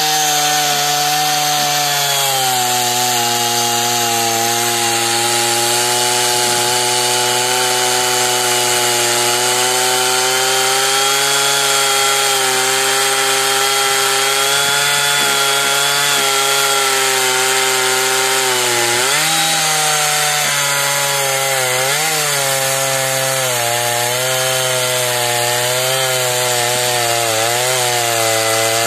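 Husqvarna 480 CD two-stroke chainsaw cutting through a big hard beech log at full throttle with an Oregon 3/8 bar and chain. The engine pitch holds steady for most of the cut, then sags and recovers several times in the last third as the chain is pushed harder into the wood and bogs under load.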